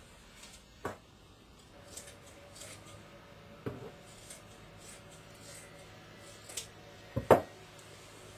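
Scissors cutting through shirt cotton: a few separate snips, spread out, with soft fabric handling between them. About seven seconds in comes a louder double knock, the loudest sound.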